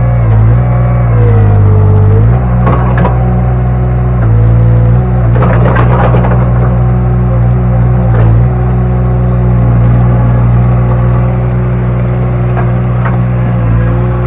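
Derette V1000 mini skid steer's engine running under load, its pitch dipping and recovering several times as the machine works. Rocks clatter and scrape in the steel rock bucket in two short bursts, about three seconds in and again around the middle.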